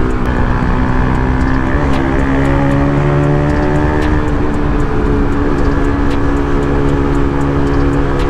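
Motorcycle engine running under way, loud and steady, its pitch shifting about two seconds in and again about four seconds in.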